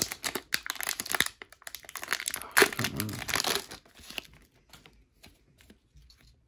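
Foil trading-card pack being torn open and crinkled by hand, a dense crackle for about four seconds that then drops to faint, scattered handling clicks as the cards come out.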